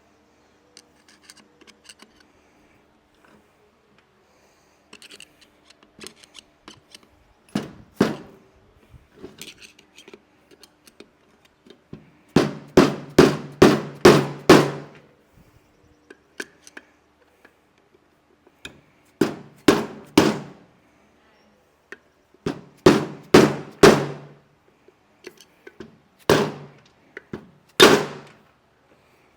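Hammer blows on a stuck gear in a CFMOTO UTV differential, coming in bursts with one fast run of about eight strikes, as the gear is knocked out of the housing.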